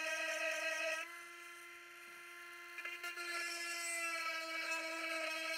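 A 12-volt electric chain sharpener running with a steady whine as its grinding wheel grinds the cutter teeth of a saw chain. The grinding drops away about a second in as the wheel leaves the tooth, and comes back about three seconds in as it bites into the next one.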